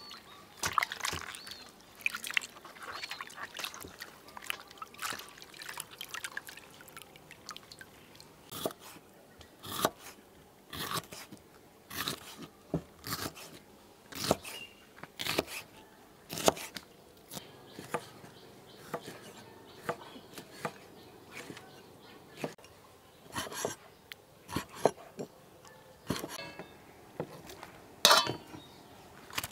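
Water sloshing in a steel bowl as pickled mustard greens are washed by hand, followed by a knife cutting through the greens onto a wooden chopping block with sharp chops about once a second.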